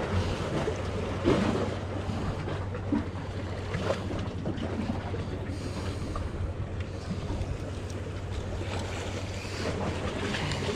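Wind on the microphone and waves washing against jetty rocks, over a steady low engine-like drone, with a few light clicks from fishing tackle being handled.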